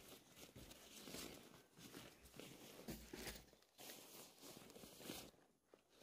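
Faint, irregular rustling and scuffing noises that come and go, with a short dip to near silence near the end.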